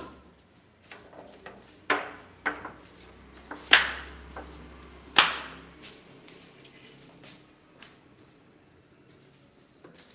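Phone handling noise as the phone is carried and moved: scattered sharp clicks and knocks, the loudest about four seconds in, with light metallic jingling near seven seconds.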